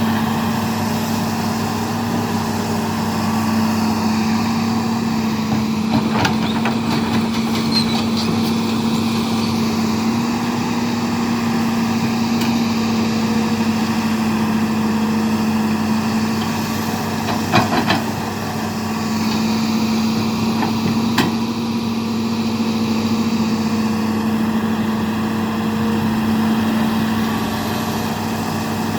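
Hitachi excavator's diesel engine running steadily, with a few brief sharp knocks scattered through it.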